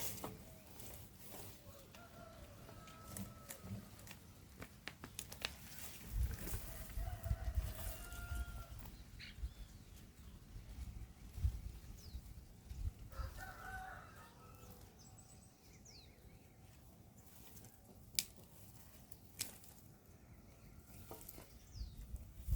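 Faint farmyard sounds: a rooster crowing a few times, each crow about a second long, with scattered sharp knocks in between.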